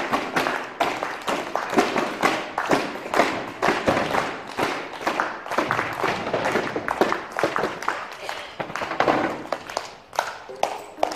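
Performers tapping, stamping and clapping on stage: a fast, irregular run of sharp taps and thumps, several a second. A few sustained musical notes come in near the end.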